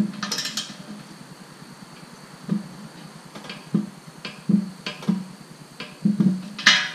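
Ratcheting torque wrench being pulled on the hitch's mounting bolts toward 80 ft-lb: a sharp click right at the start, then separate clicks every half second to a second as the handle is worked, with a busier burst of clicks near the end.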